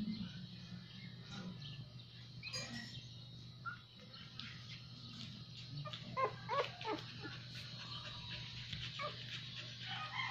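Dogs whimpering from a Siberian husky litter with its nursing mother: a few faint squeaks early on, then a run of short high whines about six seconds in, over a steady low hum.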